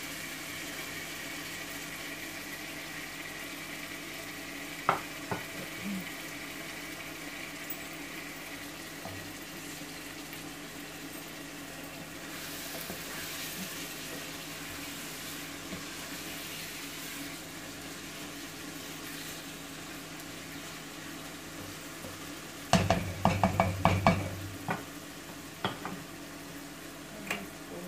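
Potato curry sizzling steadily in a pot on the hob while being stirred with a wooden spoon. Near the end comes a quick run of sharp knocks as the wooden spoon taps against the pot and is set down on a plate.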